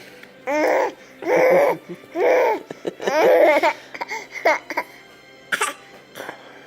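A baby making four drawn-out laughing vocal bursts about a second apart in the first four seconds, then a short one near the end.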